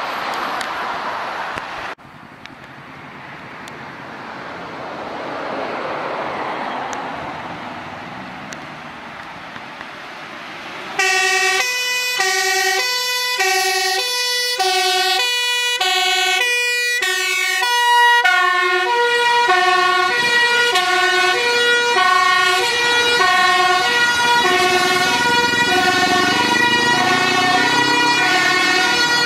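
Road traffic passing, then about eleven seconds in a fire engine's two-tone siren starts, switching between two pitches about every half second. From about eighteen seconds a second two-tone siren overlaps it, and near the end a truck engine rises in pitch as it accelerates past.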